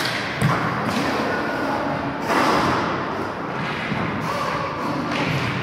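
Sounds of roller hockey play in a sports hall: a sharp thud about half a second in, and a louder burst of clattering noise a couple of seconds later, over faint background voices.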